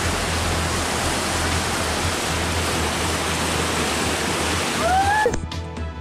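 Steady rush of white-water river rapids. Near the end a brief rising cry sounds, and the water gives way to background music.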